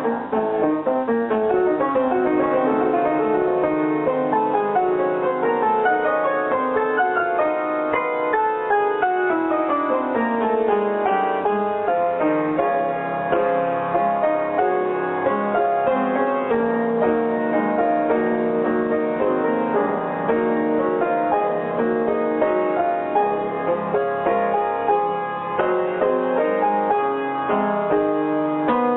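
Piano music, a dense stream of notes with long falling runs over roughly the first ten seconds.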